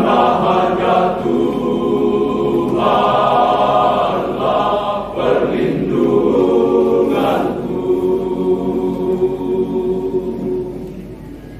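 Men's choir singing in several swelling phrases, then holding a long final chord that fades away near the end.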